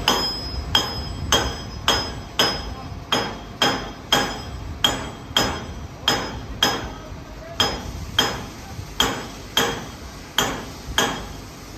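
Hammer blows on steel: a steady series of sharp, ringing metallic strikes, about one every 0.6 seconds.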